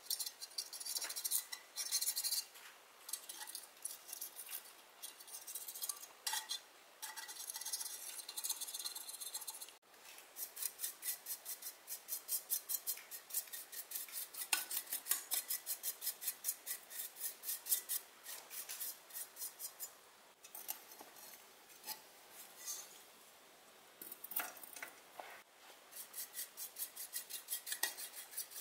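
A thin metal tool scraping old brown residue off a loudspeaker's stamped metal frame, then, from about ten seconds in, a stiff brush scrubbing the metal in quick, even back-and-forth strokes, about three a second.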